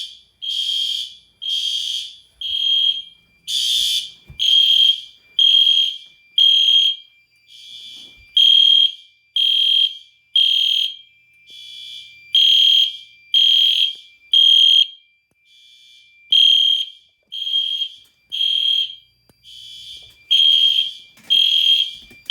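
Fire alarm horn strobes of a home test system in alarm after a manual pull station was pulled: a loud, high horn pulsing about once a second, mostly in runs of three with short quieter gaps, over a thin steady high tone.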